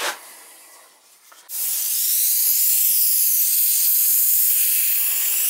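Air hissing steadily out of a cast iron radiator's bleeder valve, opened with a radiator key while the hot-water heating system is filled: the radiator being bled of air. The hiss starts suddenly about a second and a half in, after a short knock at the very start.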